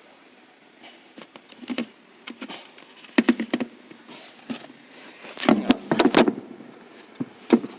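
Irregular plastic clicks, knocks and rattles as the dirt container of a Sanitaire Quiet Clean upright vacuum is worked open to get at its filter. The vacuum motor is not running. The loudest cluster of knocks comes a little past the middle.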